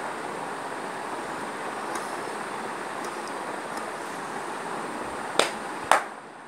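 Electric fan running with a steady rushing noise, with two sharp slaps about half a second apart near the end, a hand striking the signer's arm.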